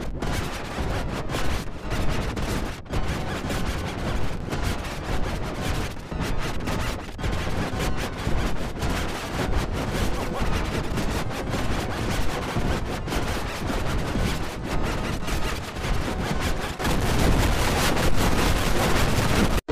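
Harsh, heavily distorted digital audio effect: a dense crackling noise with rapid, irregular pops spread across all pitches, growing louder about three quarters of the way through.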